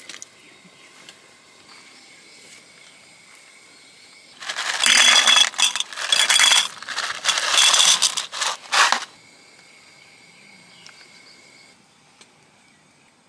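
Metal clinking and clattering with a ringing tone, in a run of rapid strikes lasting about four and a half seconds from about four seconds in.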